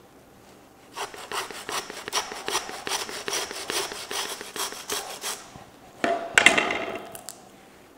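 Butcher's hand bone saw cutting down through the chine bone of a pork loin, a run of quick, even back-and-forth rasping strokes lasting about four seconds. About a second after the strokes stop, a louder, brief scraping noise follows.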